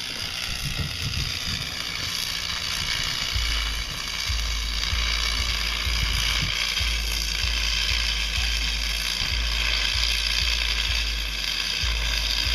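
Wind rumbling on the microphone in uneven gusts, over a steady high hiss.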